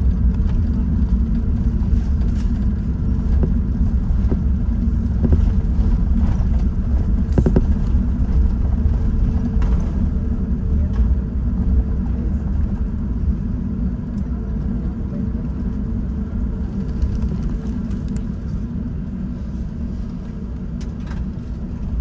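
Steady low rumble of cabin noise inside a British Airways Airbus A380, with a thin steady hum above it. It grows gradually quieter over the second half.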